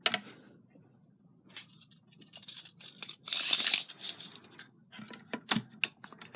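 Handling clicks and a short sliding scrape, about half a second long a little past the middle, from a portable radio's telescopic antenna being pulled out and measured with a tape measure.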